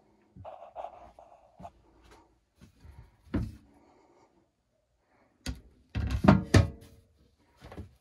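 Scattered knocks, clicks and thumps, with a cluster of the loudest about six seconds in.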